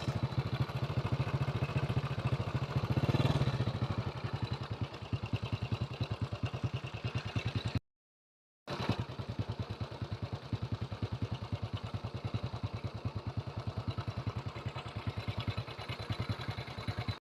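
Small engine running steadily with a fast, even pulse; the sound cuts out completely for about a second near the middle, then resumes unchanged.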